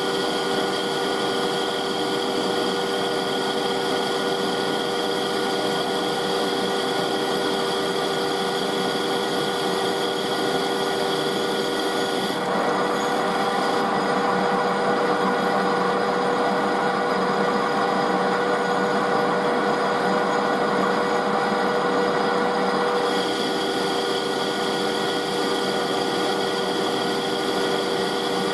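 Metal-cutting lathe running at 755 rpm as the tool turns down a metal bar: a steady machine hum with a few held tones and a cutting hiss. About 12 seconds in the sound changes, with less hiss and more mid-range noise, and it goes back to the first sound about 23 seconds in.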